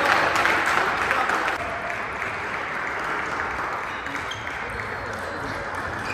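Brief clapping from a small group in a table tennis hall, stopping about a second and a half in. Later come a few faint ticks of the celluloid ball during the next rally.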